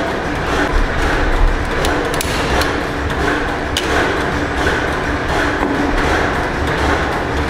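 Antique stationary gas engines running in the engine hall: a steady mechanical din with repeated knocking, and a few sharp clicks about two and four seconds in.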